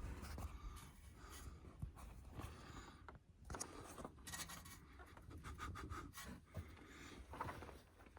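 Faint, irregular scraping and rubbing with small clicks, the sound of hands handling and working on parts at close range.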